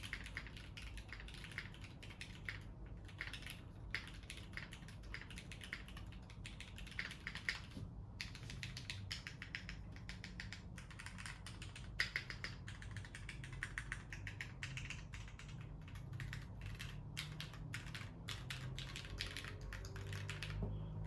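Typing on a Keychron Q3 tenkeyless mechanical keyboard with lubed and filmed Cherry MX Red linear switches, a steel plate, PBT keycaps and plate and case foam. It is a fast, continuous run of keystroke clacks, with a couple of short pauses and one harder stroke about halfway through.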